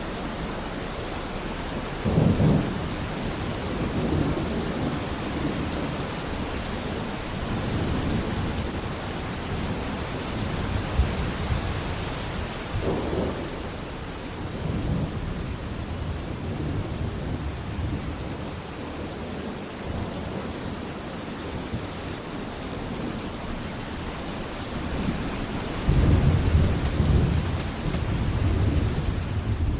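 Steady rain falling, with low rolls of thunder: one about two seconds in, one around the middle, and the longest and loudest near the end.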